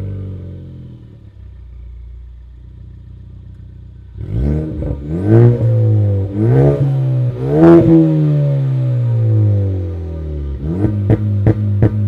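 Ford Focus ST's turbocharged 2.0-litre four-cylinder exhaust, tuned to crackle on overrun: it idles, then is revved several times, the revs climbing and falling with sharp pops. Near the end it pops about three times a second over steady revs.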